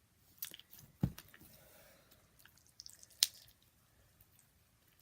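Cold, stiff slime being squeezed and worked in the hands: soft squishes and small sticky clicks, with a low thump about a second in and one sharp click a little after three seconds.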